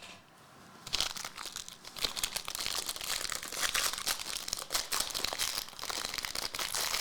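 Plastic trading-card pack wrappers crinkling and tearing as they are handled and opened, a dense crackle that starts about a second in.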